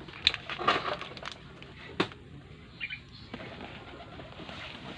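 Pigeon cooing in the background, with a few sharp clicks and knocks from hand work on a motorcycle cylinder head; the loudest knocks come just after the start and about two seconds in.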